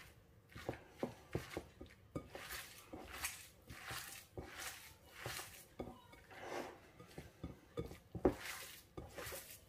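Hands kneading and squeezing a moist cottage-cheese mixture in a glass bowl: quiet squelching and rustling strokes about once a second, with light knocks of fingers against the glass and a sharper knock near the end.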